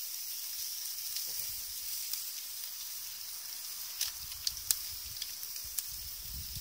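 Sausages and merguez sizzling on a grill over a wood fire. A steady high hiss runs throughout, with a few sharp pops and crackles about four to five seconds in.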